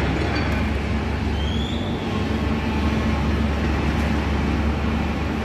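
Diesel engines of Hyundai hydraulic crawler excavators running steadily, a low even drone, with a short rising squeak about one and a half seconds in.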